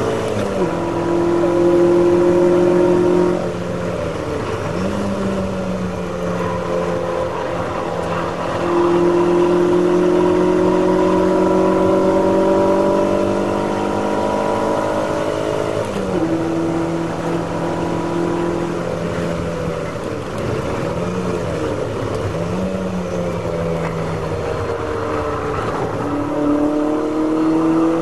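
Ferrari V8 race-car engine heard from inside the cockpit at racing speed. The engine note climbs slowly under full throttle, drops sharply when the driver lifts off about three seconds in and again just past halfway, wavers through braking and a downshift from fourth to third, and picks up again near the end.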